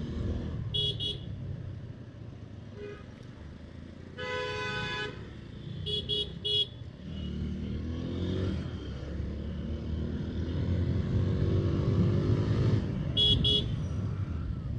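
City traffic with vehicle horns honking repeatedly: two short beeps near the start, a longer horn blast about four seconds in, three quick beeps about six seconds in and two more near the end, over the steady rumble of motorcycle and car engines, some of which rise in pitch as they pull away.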